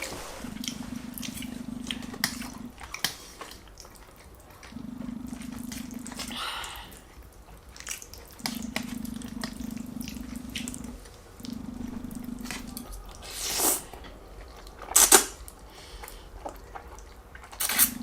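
Eating sounds of spaghetti and meatballs: small wet mouth clicks and chewing, with two louder slurps a little past the middle. A low hum comes and goes in stretches of a second or two.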